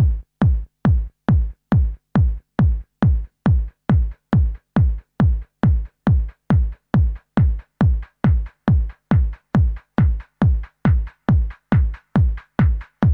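Electronic dance music with a heavy kick drum on every beat, a little over two beats a second.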